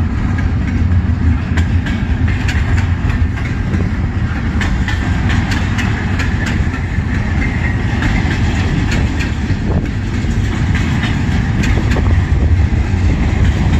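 CN freight train cars rolling slowly past, wheels clicking irregularly over rail joints above a steady rumble.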